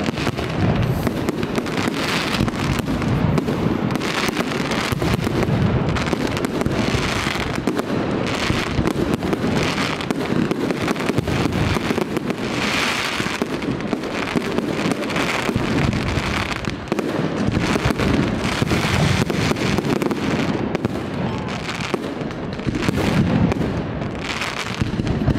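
Aerial fireworks display: a continuous barrage of overlapping shell bursts and bangs, with no pause.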